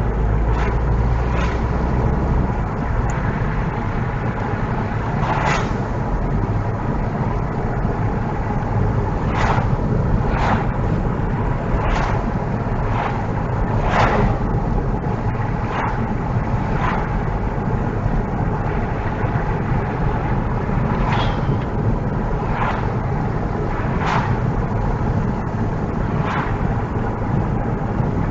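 Car on the move: a steady low rumble of engine and road noise, with sharp knocks every second to few seconds.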